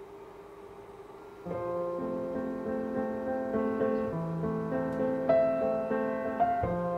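Background piano music, a gentle melody over held chords, comes in suddenly about a second and a half in. Before it there is only a faint steady hum.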